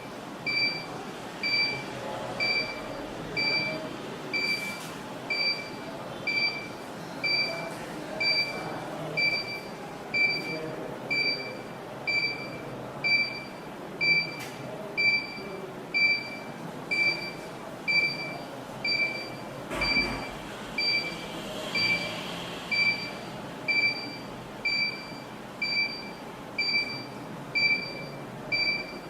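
Active 108 burglar alarm control panel's buzzer beeping steadily, a short high beep about once a second, with zone 1 activated in night mode.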